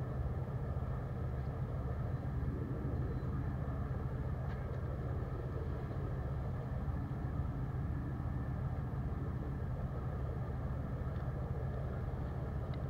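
Boat engine running steadily, a constant low drone with no change in speed.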